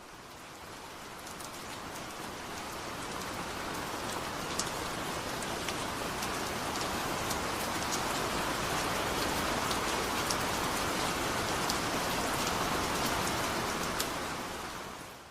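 Steady heavy rain falling, with scattered sharp drop impacts; it fades in over the first few seconds and fades out near the end.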